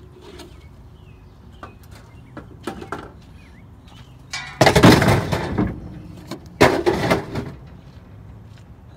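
A metal wire appliance rack being handled and tossed onto scrap metal: a few light knocks, then two loud metal crashes with clatter, about four and a half and six and a half seconds in.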